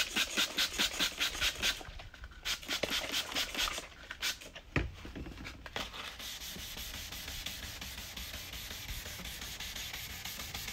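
Wet sanding of a plastic car headlight lens by hand with 800-grit sandpaper on a sanding block. Quick back-and-forth scraping strokes, about five a second, come in several short runs over the first six seconds, then turn into a steadier, even scrubbing. This is the 800-grit stage of headlight restoration, cutting away the oxidised, yellowed surface of the plastic.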